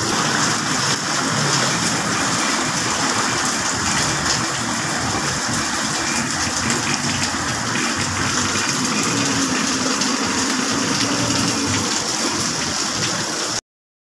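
Steady rushing of heavy rain and floodwater flowing across a flooded street, a dense hiss that cuts off suddenly near the end.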